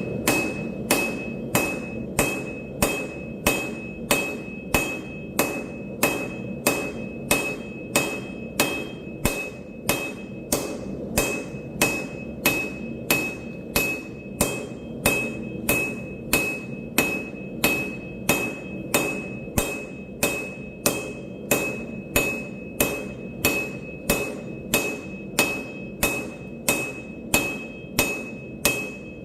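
Hand hammer striking steel on an anvil in a steady rhythm, about three blows every two seconds, each blow followed by a short, high ring.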